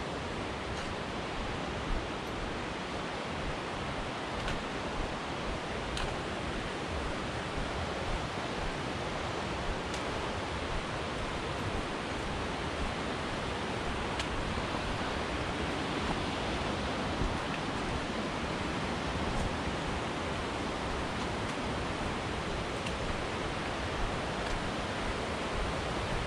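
Steady rush of a fast mountain creek: an even, unbroken hiss of moving water.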